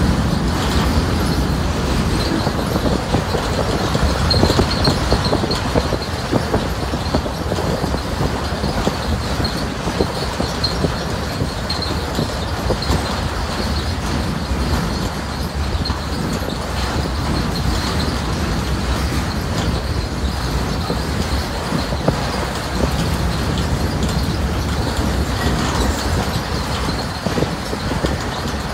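Loaded freight cars rolling past on a steel truss bridge: a steady rumble and clatter of wheels on the rails, with many small clicks and a thin high squeal from the wheels that comes and goes.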